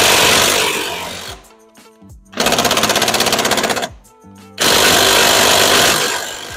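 Ryobi 18-volt brushless cordless half-inch impact wrench hammering on wheel lug nuts that were still tight, breaking them loose and spinning them off. It runs in three bursts, the middle one with a fast, even hammering rattle.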